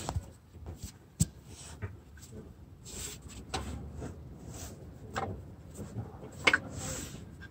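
Faint scattered clicks and rustling from hands and parts being worked under a car while a crankshaft position sensor is fitted. The sharpest click comes about a second in.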